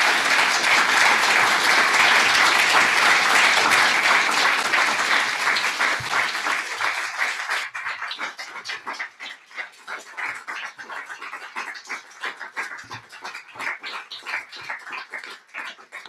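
Audience applauding: full, dense clapping for the first seven seconds or so, then thinning out into scattered individual claps that taper off near the end.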